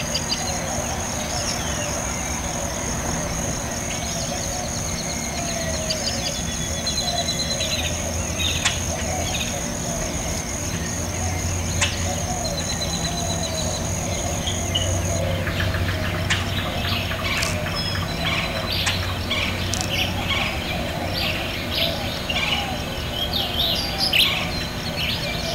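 Outdoor nature ambience: a steady high insect trill that stops about halfway through, followed by many short bird chirps.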